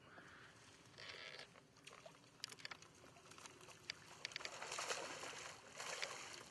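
A hooked largemouth bass fought from a boat: scattered short clicks, then bursts of splashing noise, the loudest about five and six seconds in, as the fish thrashes at the surface.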